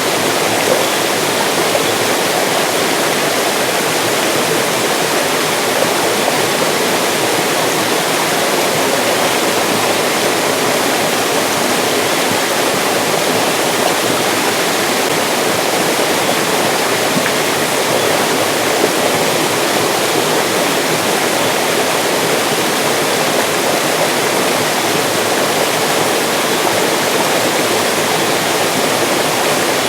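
Mountain stream rushing over rocks: a steady, dense wash of flowing water.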